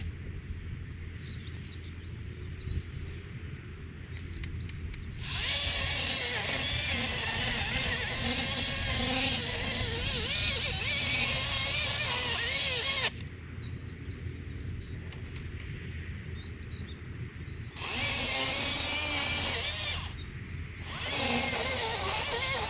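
A motor-driven cutting tool trimming trees. A low engine hum runs steadily, and three times it breaks into long, loud spells of cutting with wavering pitch: the first about five seconds in lasts some eight seconds, and shorter ones come near the end.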